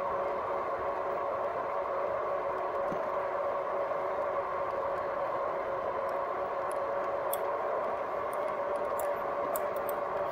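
A RadMini electric bike riding along at a steady speed: a constant hum with a steady whine over an even rushing noise, with a few faint ticks in the second half.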